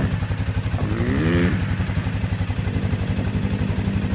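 Suzuki KingQuad ATV engine idling steadily, briefly louder about a second in.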